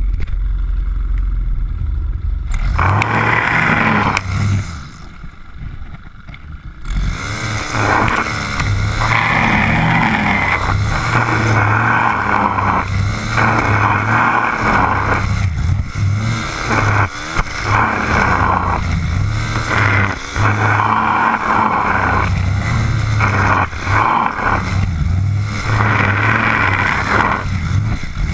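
Stihl FS 130 brush cutter's 4-MIX engine: low and steady for the first couple of seconds, revving up briefly and dropping back, then from about seven seconds on throttled up and eased off again and again, every couple of seconds, as the cutting head mows through tall grass.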